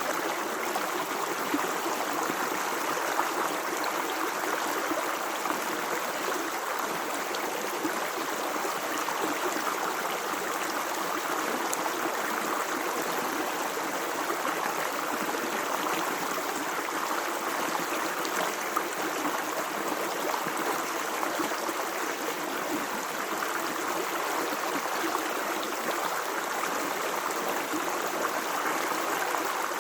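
Water running in a stream, a steady, unbroken rush and burble.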